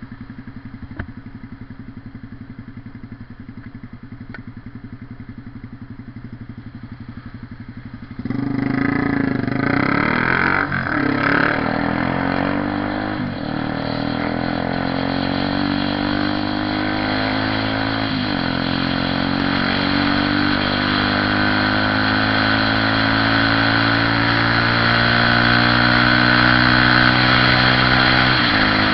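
Honda CB 300R single-cylinder motorcycle engine running steadily and fairly quietly. About eight seconds in it gets much louder as the bike accelerates, the pitch climbing and dropping back at each of several upshifts.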